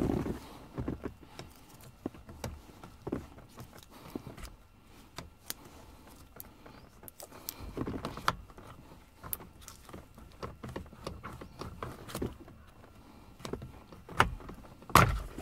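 Light clicks, taps and scrapes of a long screwdriver probing into the release hole on the back of a car steering wheel to free the driver airbag's spring clip, with one louder knock near the end.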